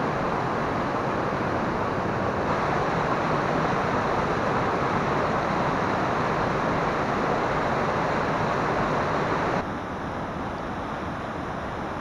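Steady rush of the Beltertuyuk waterfall's cascade, white water pouring through a narrow rock gorge. Near the end it drops a little quieter and duller.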